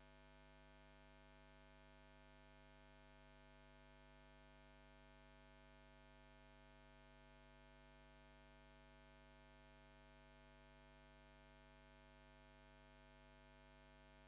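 Near silence: a faint, steady, unchanging hum.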